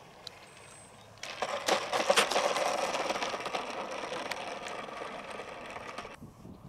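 Electric RC model airplane's motor and propeller noise. It starts suddenly about a second in, is loudest just after it starts, fades steadily as the plane passes, and cuts off abruptly near the end.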